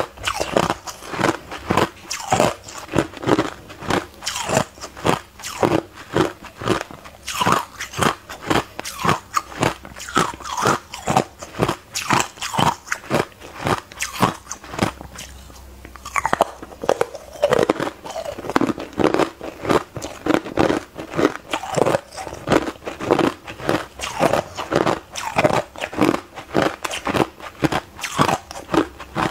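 Biting and chewing a thin disc of hard ice dusted with matcha powder: a rapid, continuous run of sharp crunches, with a short lull about halfway through.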